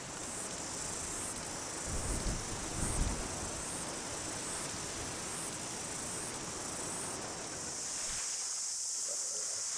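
Cicadas buzzing in a high chorus that swells and fades in pulses, then holds steady near the end, over a steady hiss that drops away shortly before the end. A couple of low rumbles come about two and three seconds in.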